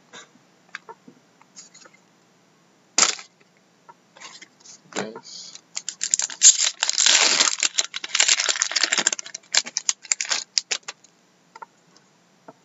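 Foil wrapper of a trading card pack crinkling and tearing as it is ripped open by hand, a dense crackle lasting about four seconds midway. Scattered ticks and rustles of cards and wrapper being handled come before and after it.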